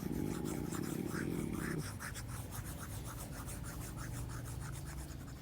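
Fast, repeated rubbing strokes of written notes being erased.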